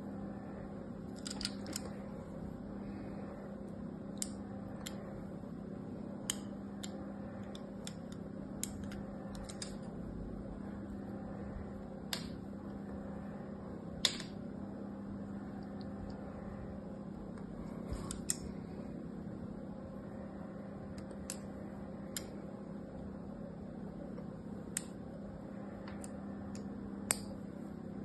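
Utility knife blade scoring crisscross lines into a hard bar of soap: sharp little clicks and scratches every second or two, over a steady low hum.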